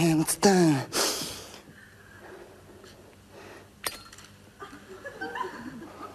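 A man's voice makes sliding, swooping vocal sounds and a breathy exhale. After a quiet stretch comes a single sharp metallic click from a small metal lighter, about four seconds in. Faint voices follow near the end.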